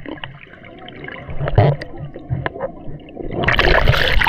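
Sea water heard from a submerged camera: muffled gurgling with scattered crackles and clicks, then a loud rush of splashing water starting about three and a half seconds in.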